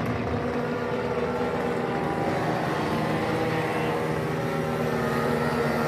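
Engines of several powered paragliders (paramotors) running together, a steady drone with a few held tones.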